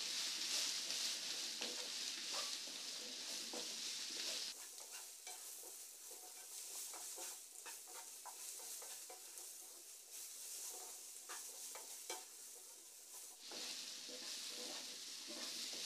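Diced yellow pumpkin being stirred with a wooden spatula in a nonstick frying pan, mixing in the spice powders: faint sizzling with scattered scrapes and taps of the spatula. The sizzle drops away for most of the middle and comes back near the end.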